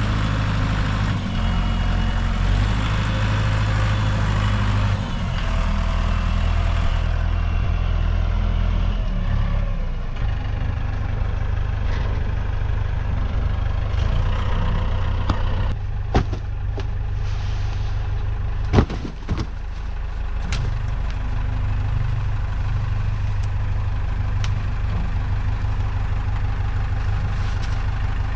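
A vehicle engine running steadily at idle, its note shifting about a quarter of the way in. A few sharp knocks are heard a little past the middle.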